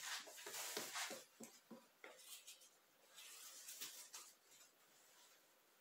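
Faint handling noises of painting materials: a quick run of light clicks and taps, then a few soft scraping rustles that fade out.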